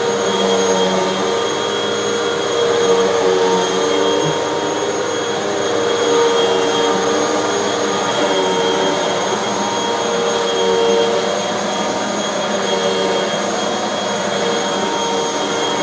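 Hoover bagless vacuum cleaner running steadily on carpet, its motor whine and airflow hiss holding a constant pitch while the loudness swells and eases slightly.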